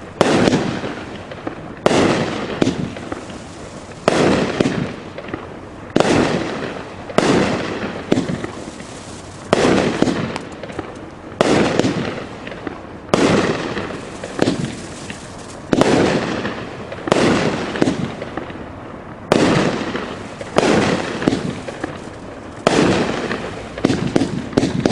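A 25-shot, 500-gram consumer firework cake with 1-inch tubes firing shot after shot, about one every second or two. Each shot is a sharp report followed by a fading fizz and crackle.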